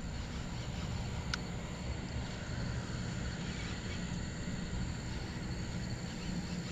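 Wind buffeting the camera microphone, giving a steady uneven low rumble, with a faint thin high tone behind it and one faint click about a second and a half in.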